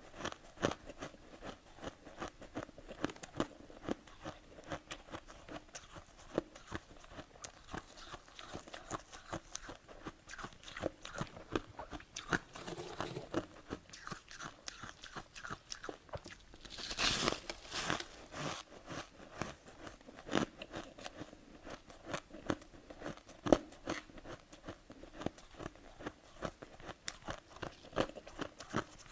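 Close-miked biting and chewing of powdery freezer frost, a steady run of crisp, irregular crunches. A louder, longer crunch comes a little past halfway.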